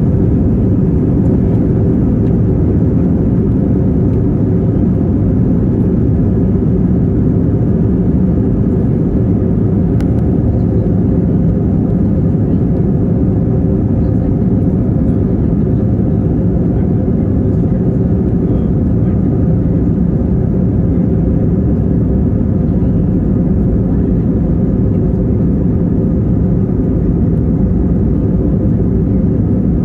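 Airbus A321 cabin noise from a window seat while the plane is on the ground: a loud, steady jet-engine drone with a low hum, not rising or falling.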